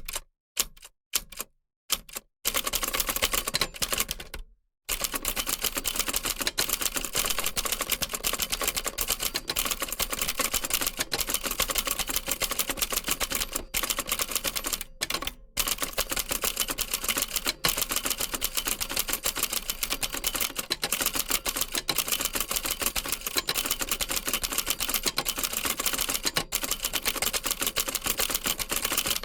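Typewriter being typed on: a few separate key strikes, then from about two seconds in a rapid, continuous clatter of keys, with a brief pause shortly after and a few short breaks about halfway through.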